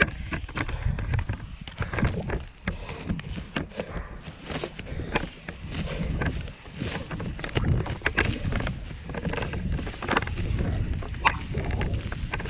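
Powerslide Next Edge SUV off-road inline skates with two large 150 mm wheels, rolling and striding across grass: an uneven rumble broken by frequent irregular clicks and knocks.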